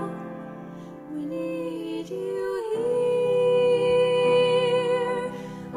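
Slow, soft music: a low steady drone under long held notes, growing fuller about halfway through.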